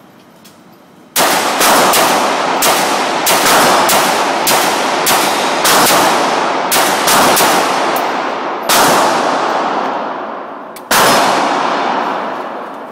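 Rapid, irregular gunfire: about fifteen loud shots, each with a long reverberant tail, with a pause of about two seconds before the last one.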